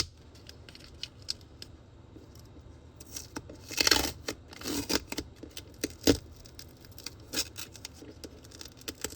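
Painter's tape being peeled off a painted wall: short tearing rips and crinkles, the longest about four seconds in, with small clicks between.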